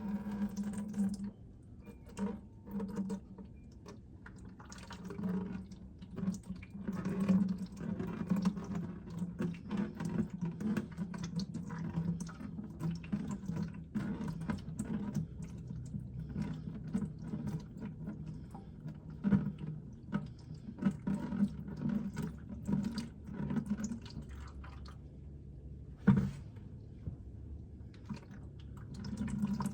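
Engine oil pouring out of the Can-Am Spyder F3's drain hole and splashing into a drain pan, an uneven run of spatters and gurgles. There is one sharp knock about 26 seconds in.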